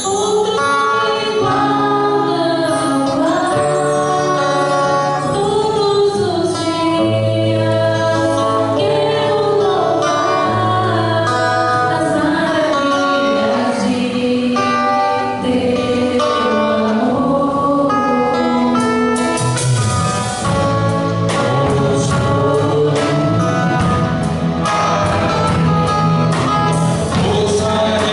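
Live gospel worship song from a church band: singers over electric and acoustic guitars, keyboard and drums. About two-thirds of the way through, the drums come in harder and the song fills out.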